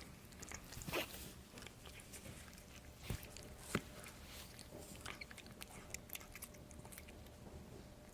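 A cat sneezing: three short sharp sneezes, one about a second in and two close together around three to four seconds in, with faint clicking between.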